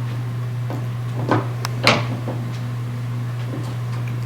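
Small plastic toy figures being handled and set down, giving a few short clicks and knocks, the loudest about two seconds in, over a steady low hum.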